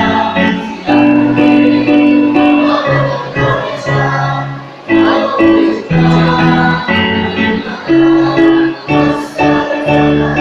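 A choir singing with musical accompaniment: held notes that change every second or so.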